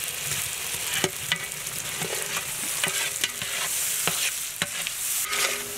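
Chopped tomatoes and onions sizzling in hot oil in a large metal cooking pot as a big metal ladle stirs them. The ladle knocks and scrapes against the pot every half second to a second.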